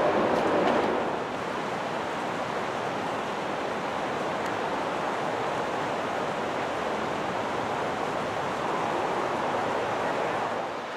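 Steady rush of fast-flowing stream water, running high with mountain runoff. It drops a little in level about a second in, then holds even.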